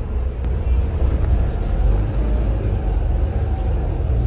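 Inside a Volvo B7RLE single-deck bus under way: the rear-mounted six-cylinder diesel and road noise make a steady low rumble.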